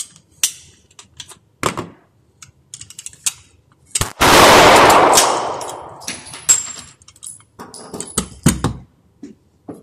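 Clicks and small knocks of a pistol being handled, then one loud pistol shot about four seconds in that rings on for about two seconds in the small range room. More clicks and a couple of knocks follow near the end.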